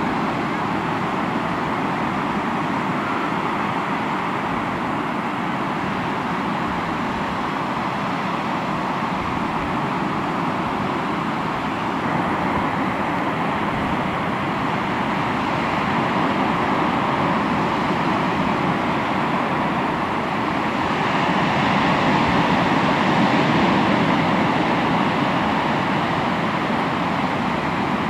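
Sea waves breaking and washing continuously on the shore in a steady roar of surf, swelling louder about twenty seconds in.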